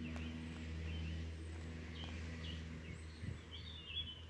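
Faint scattered bird chirps over a steady low hum that fades away after about three seconds.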